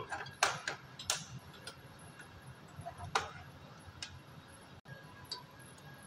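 Open-ended spanner and adjustable wrench clicking and tapping on a brass flare nut and copper refrigerant line as the flare joint is tightened: a few sharp, irregular metallic clicks, the loudest in the first second and again about three seconds in.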